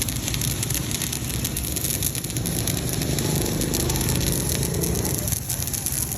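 Continuous crackle of a stick-welding arc from a Kimmie inverter welder burning a 3.2 mm electrode, with a lower rumble under it in the middle of the run.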